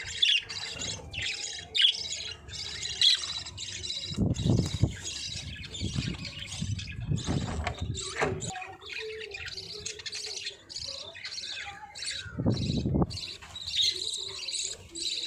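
Several budgerigars chirping and warbling without a break, quick overlapping high chirps and chatter, with a couple of brief low rustles about four seconds in and again near the end.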